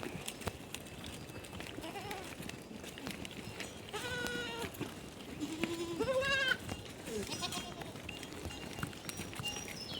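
Flock animals bleating: two quavering calls stand out, one about four seconds in and a louder one around six seconds, with fainter calls between them.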